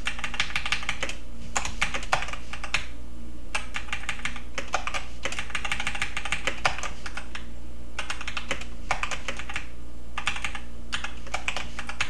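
Typing on a computer keyboard: bursts of quick keystrokes with short pauses between them, over a steady low hum.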